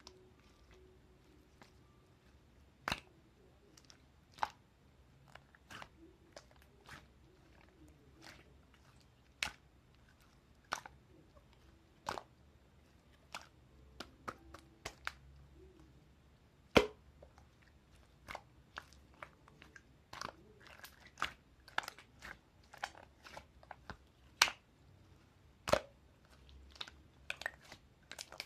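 Slime being pressed and poked by hand, giving irregular sharp clicks and pops. They come a second or more apart at first and turn more frequent in the second half, with one loud pop a little past the middle.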